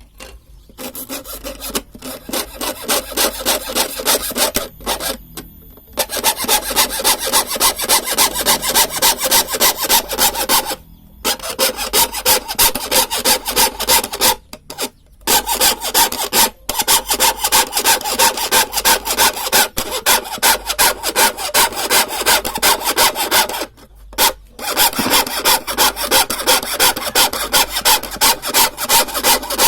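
Hand saw cutting through wood with quick, even back-and-forth strokes, about three a second, stopping briefly several times.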